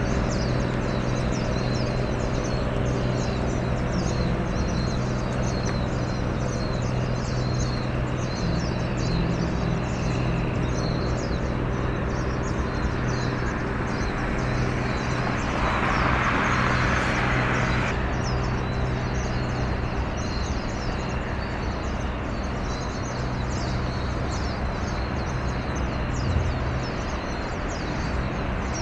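Steady low engine hum of several even tones, with a rapid high ticking running over it and a short burst of hiss about sixteen seconds in.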